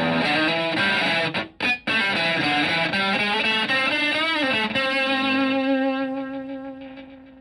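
Electric guitar (Stratocaster) played through a Zonk Machine-style fuzz pedal into a Fender Twin Reverb clone amp, giving fuzzy distorted single notes. There is a brief break about a second and a half in, and a bent note around four seconds. A held note then fades out near the end.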